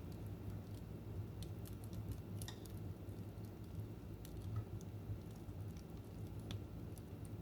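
Wood fire burning in a fireplace: irregular sharp crackles and pops over a steady low rumble of the flames, with a brief cluster of crackling about two and a half seconds in.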